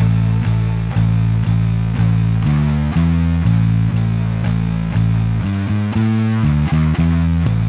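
Instrumental background music: guitar and bass over a steady beat of about two a second.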